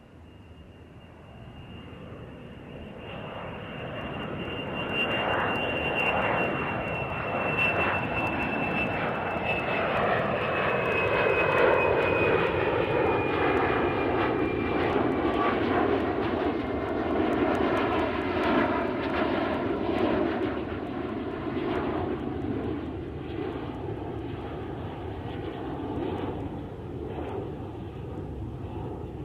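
Fixed-wing airplane passing overhead. Its engine noise swells to its loudest about twelve seconds in and then slowly fades. A high whine falls gradually in pitch during the approach.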